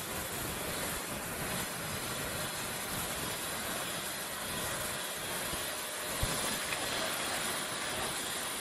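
Steady street traffic and road noise, with motorcycles and other vehicles on the road. There is a short click about six seconds in.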